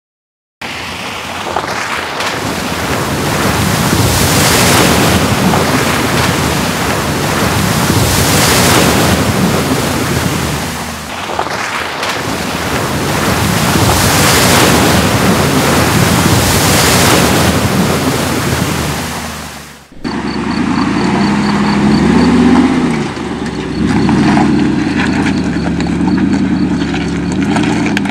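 Off-road SUVs, among them a Land Rover Defender, driving fast through a deep muddy ford: loud sheets of splashing water over the running engine, easing briefly midway. About 20 s in it cuts to a Mercedes G500 G-Class crawling over rocks, its engine running at low speed and rising and falling in pitch as the throttle is worked.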